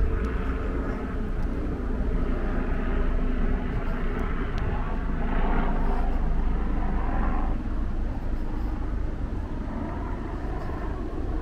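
Outdoor city ambience: a steady low rumble that swells for a few seconds in the middle and eases off near the end.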